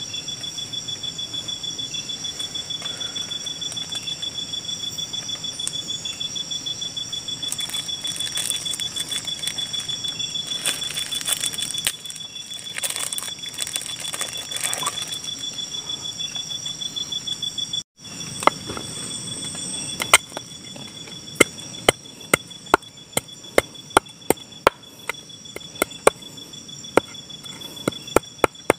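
Night insects chirring steadily, a fast pulsing high trill. After a cut about two-thirds of the way in, a knife chops on a wooden log-slice board in sharp strokes, about two a second, over quieter insect sound.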